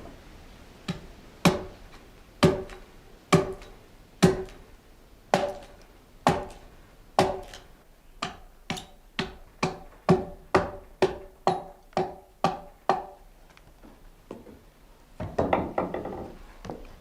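Rhythmic wooden knocking from the water-powered sawmill's machinery, each knock ringing briefly. The knocks come about once a second, quicken to about two a second, stop, then return as a short jumble near the end.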